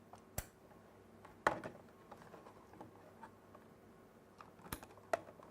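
A few short, sharp clicks and knocks at irregular spacing, the loudest about one and a half seconds in: an Ethernet cable's plug being handled and clicked into its ports.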